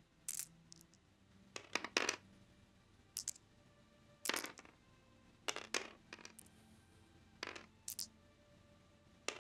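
Dice-rolling sound effect of virtual X-Wing green defence dice tumbling on a digital game table: a string of short, sharp clacks coming irregularly in small clusters.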